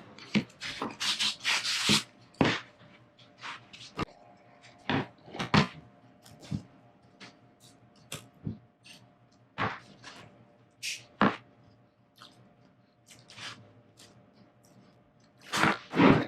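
Irregular knocks, clicks and taps of parts and tools being handled and set down, with a brief scraping stretch early on and a louder pair of knocks near the end, over a faint steady hum.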